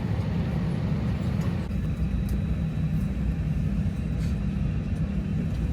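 Steady low rumble inside the cabin of an Airbus A320 airliner, with a lighter hiss over it that thins a little about two seconds in.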